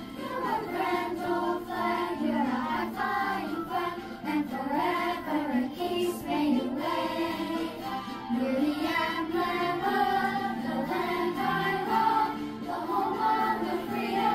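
A group of children singing a song together with instrumental accompaniment.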